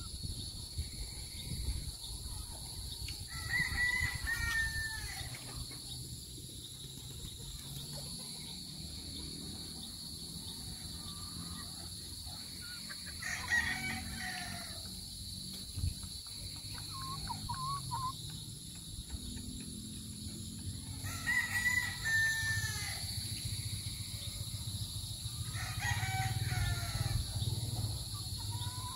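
Roosters crowing, about four separate crows each lasting a second or so, spaced several seconds apart.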